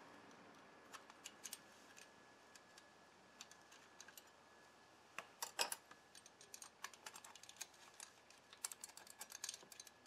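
Faint, irregular metallic clicks and ticks of a pick and clutch plates being worked loose inside a Honda VTX1800's clutch basket. The clicks come sparsely at first, with a louder cluster about halfway through and busier clicking after that.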